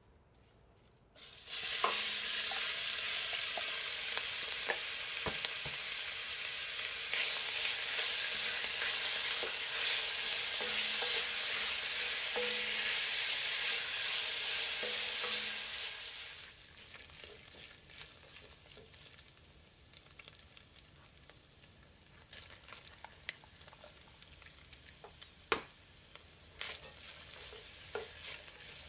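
Ground beef hitting hot oil in a pot, sizzling loudly at once. A little past halfway the sizzle drops to quieter frying, with the scrapes and taps of a silicone spatula stirring the browning mince and diced onion.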